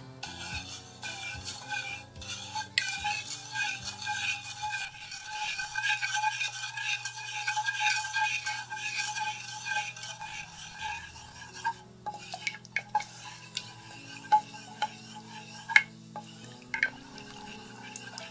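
Wooden spatula stirring a thin, still-liquid sauce in a stainless steel saucepan, scraping steadily around the bottom and sides of the pan. About eleven seconds in the stirring becomes lighter, with a few separate taps and clicks of the spatula against the pan.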